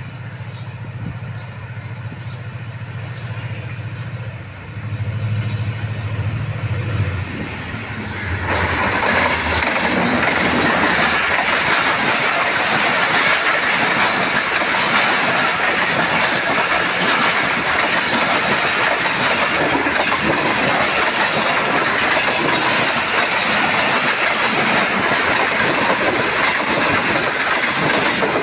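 Diesel locomotive of a passenger express approaching, its engine drone growing louder, then passing close by at speed about eight seconds in. A loud, steady noise of the coaches' wheels running on the rails follows as the train rolls past.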